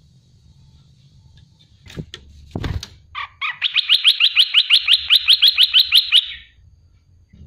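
Olive-winged bulbul giving a fast chattering run of about twenty rising notes, some seven a second, lasting about three seconds. A couple of short knocks come just before it.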